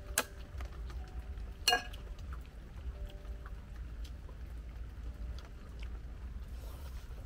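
Quiet mealtime sounds: faint clicks of chopsticks, and one sharper clink of chopsticks against a ceramic bowl about two seconds in, over a low steady rumble.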